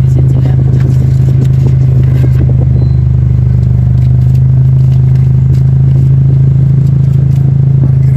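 Steady low hum of a car's engine heard from inside the cabin while stopped, with crackling and scraping from a paper ticket handled close by, mostly in the first few seconds.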